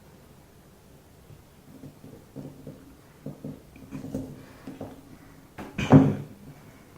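Small parts being worked by hand: faint clicks and scrapes as balls are pressed into a gas regulator's holes with a wooden block, with one louder knock about six seconds in.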